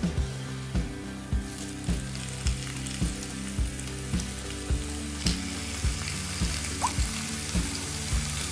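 Raw chicken pieces going into hot coconut oil with fried shallots and chilli flakes in a frying pan, sizzling, the sizzle getting louder about five seconds in. Background music with a steady beat plays underneath.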